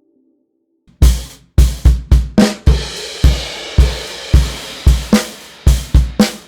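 Acoustic drum kit playing a groove, starting about a second in: kick drum and snare hits over a wash of hi-hat and cymbals.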